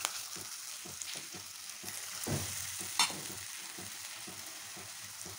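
Potato and gram-flour (besan) pakora batter frying in hot oil in a kadai: a steady sizzle, with one sharp click about three seconds in.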